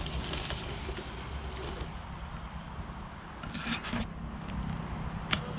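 Mountain bike riding a dirt jump line: a steady low rumble, with a short gritty crunch of tyres on dirt about three and a half seconds in and a sharp click near the end.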